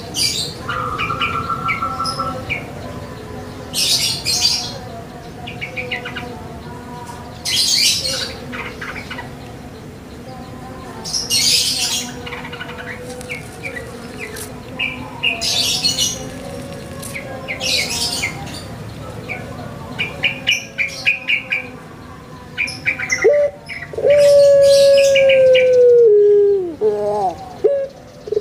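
Small birds chirping in short bursts every few seconds. Near the end, a puter pelung (Barbary dove) gives a loud, long drawn-out coo that slides down in pitch, the closing 'kwokkk' of its 'kuk gerukkk kwokkk' song.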